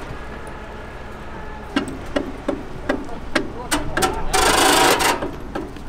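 Heavy tow truck recovery work: a low running hum, then a string of sharp knocks and clanks about two or three a second, and a loud hiss lasting under a second near the end.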